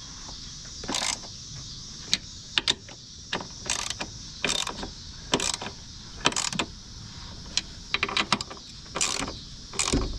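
Socket ratchet clicking in short, irregular strokes, about a dozen of them, as the nuts on a front strut's top mount are run down and tightened.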